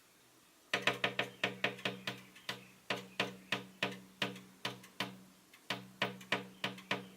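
Collared finchbill pecking at a window pane: a run of sharp knocks, about three a second and some in quick doubles, each ringing briefly. The knocking starts about a second in and stops near the end.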